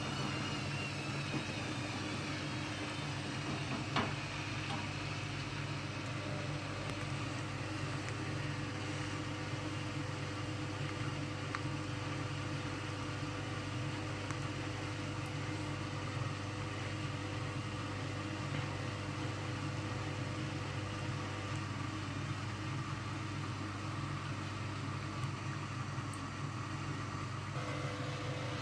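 Hoover Dynamic Next washing machine running with a steady motor hum. A high whine falls in pitch over the first few seconds, and there is a single sharp click about four seconds in.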